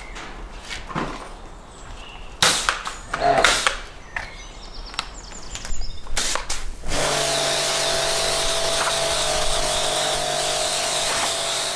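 Several sharp clicks and knocks as the pressure washer's gun and lance are handled. About seven seconds in, the pressure washer starts abruptly: its motor hums steadily under the loud hiss of the water jet blasting dirt off a concrete slab.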